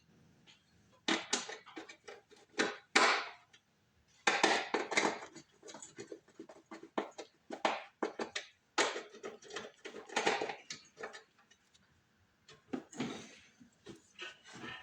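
Loose metal screws and bolts rattling and clinking as a supply of hardware is rummaged through, in several bursts of a second or so with short pauses between.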